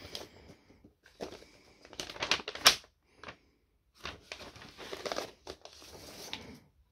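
Paper record inner sleeve rustling and crinkling in the hands as a vinyl LP is slid out of it, in several irregular bursts, with one sharp crackle of paper a little under three seconds in.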